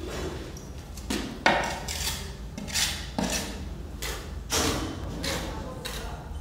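Steel trowel scraping and slapping wet cement mortar onto a tile-backed mosaic sheet, in a run of separate scraping strokes. The loudest is a sharp knock about a second and a half in.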